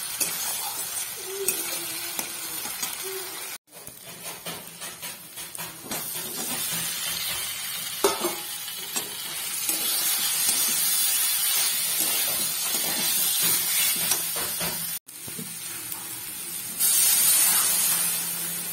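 Spice paste and then fried papaya and potato pieces sizzling in hot oil in a metal kadai, stirred with a metal spatula that scrapes and clicks against the pan. Near the end water is poured into the hot pan, and the sizzling turns suddenly louder.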